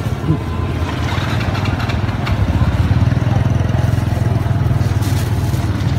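A motorbike engine running steadily with a low, even throb. There is a short knock about a third of a second in.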